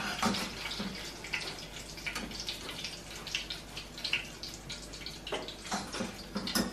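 Kibbeh deep-frying in hot vegetable oil: a steady sizzle with irregular small crackles and pops.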